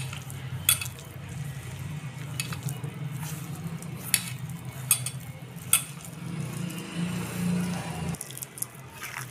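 Chicken pieces being mixed by hand with flour and spice powders in a steel bowl: soft rubbing and squishing, with a handful of sharp clinks as the hand knocks against the steel bowl.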